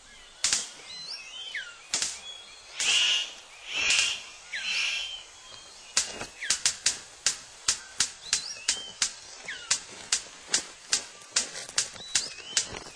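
Male superb bird of paradise in courtship display: a few harsh rasping calls with short sliding whistles, then a run of sharp, evenly spaced clicks about three a second, with occasional brief falling whistled notes.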